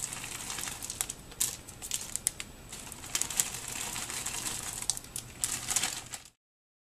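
Corn kernels pouring from a plastic bag into a plastic-lined slow cooker: a stream of small irregular clicks and taps, with the bag crinkling. The sound cuts off suddenly near the end.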